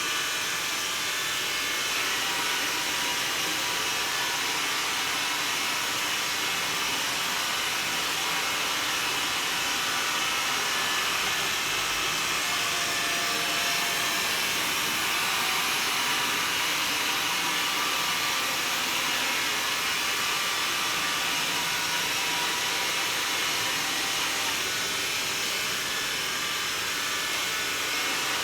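Xiaomi Mi Robot Vacuum cleaning a hard floor, its suction fan and brushes giving a steady whir and hiss.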